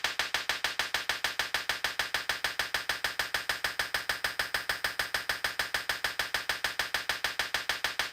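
Sharp clicks repeating evenly and quickly, about six a second, starting abruptly: a repetitive test sound of the kind played to check a baby's response to sound.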